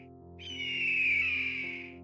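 A bird of prey's single long, hoarse scream that falls slightly in pitch, over soft background music with steady held notes.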